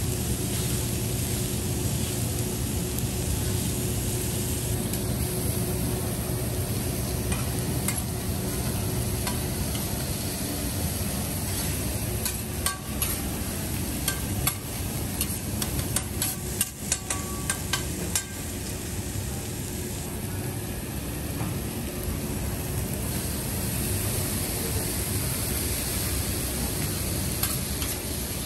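Food sizzling on a teppanyaki steel griddle while a metal spatula and fork scrape and tap against the plate. A flurry of sharp metal clicks comes around the middle.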